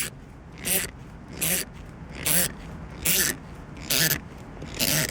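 Momo shift knob being twisted down onto a Mazda Miata gear shifter in short repeated turns, each turn a brief rasping squeak of rubber and threads, about seven turns at a steady rhythm.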